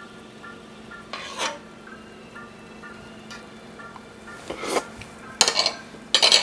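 Spoon stirring and scraping a cast-iron skillet of simmering cream sauce in four short strokes, the loudest near the end.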